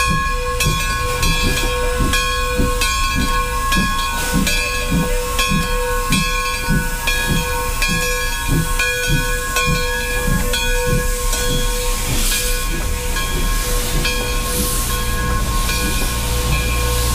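Steam locomotive working slowly into the station: regular exhaust chuffs, about three every two seconds, over a steady hiss of steam. The chuffs fade out about two-thirds of the way through as the coaches roll past, leaving a steady rolling rumble.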